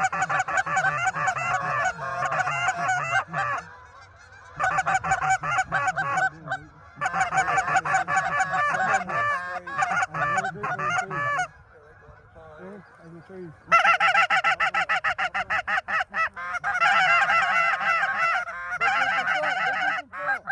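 Geese honking: many rapid, overlapping honks in long bursts with a few short lulls, cutting off abruptly at the end.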